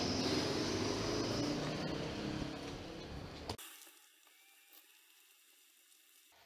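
Vehicle and wind noise on a bicycle camera's microphone, fading away over about three and a half seconds, then cut off with a click to near silence.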